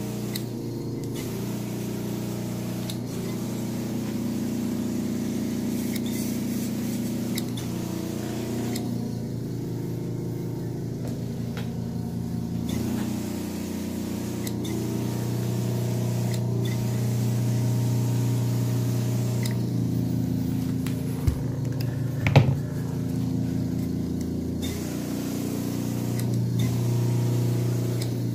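Carpet-cleaning machine motor running with a steady hum whose pitch shifts a little now and then. Two sharp knocks come a little past two thirds of the way through, the second one the loudest sound.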